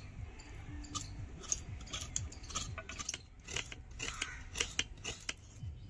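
Fresh coconut flesh being scraped on a grater: an irregular run of short rasping scrapes, about two or three a second.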